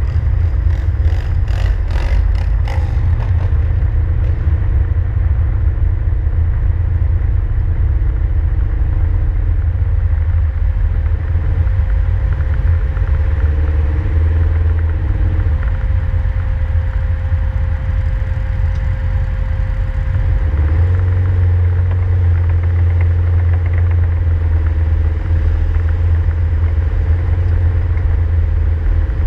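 Steady low engine and road rumble of a slow-moving vehicle, heard from inside its cab, growing louder about two-thirds of the way through. A quick run of clicks sounds in the first few seconds.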